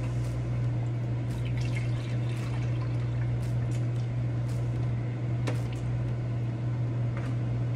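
Keurig coffee maker brewing: a steady low pump hum with liquid running, and a few small clicks.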